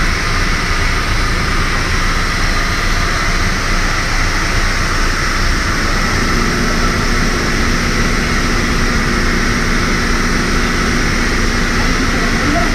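Steady drone of high-pressure washing equipment, with hissing water spray from hoses and brushes on a trailer's side and a high whine running through it. A lower hum joins about halfway in.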